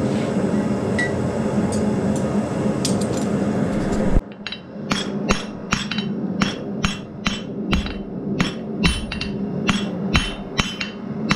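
A steady hum for about four seconds. Then, after a cut, a blacksmith's hammer strikes a hot steel bar on the anvil in a quick, even rhythm of about two to three blows a second, each ringing briefly, squaring up the bar.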